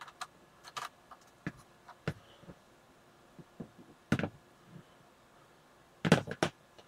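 Scattered small clicks and knocks of a plastic wiring connector being unplugged from a circuit board and the plug and cable being handled. A louder cluster of knocks comes near the end.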